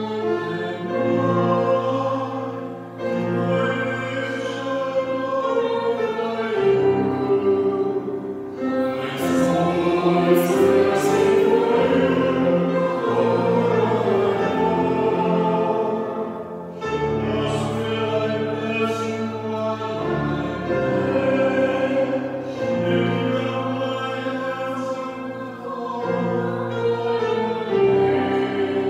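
Sung responsorial psalm: singing over instrumental accompaniment that holds long, steady notes, with the notes changing every second or two.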